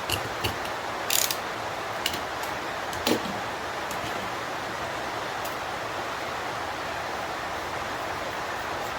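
Steady even hiss, with several light sharp clicks in the first three seconds or so, typical of small parts or tools being handled on a workbench.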